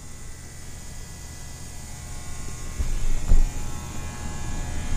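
Steady low background hum in a large warehouse, with two soft knocks about three seconds in.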